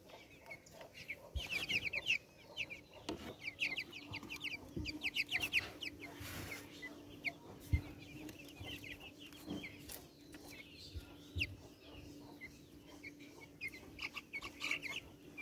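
Young American Light Brahma chicks peeping, in quick runs of short high calls that drop in pitch, with a few faint clicks among them.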